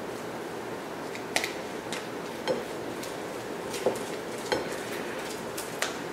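A metal spoon scooping crab meat out of a plastic tub into a mixing bowl, with several light clinks and scrapes as the spoon knocks the tub and bowl.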